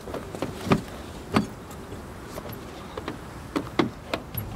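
Irregular sharp knocks and clicks of hands and feet on a Ford F-MAX truck's cab grab handles, steps and door. The two loudest come in the first second and a half, and a quicker cluster follows late on.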